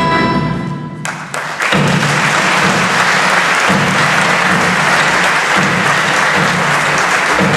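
A folk band's music ends on a held chord about a second in. A theatre audience then breaks into sustained applause.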